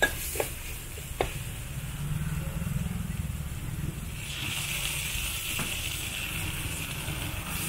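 Wok stir-frying of minced pork with holy basil: a few sharp metal clanks of the spatula against the wok in the first second or so over a steady low rumble, then a sizzle that rises about four seconds in and carries on.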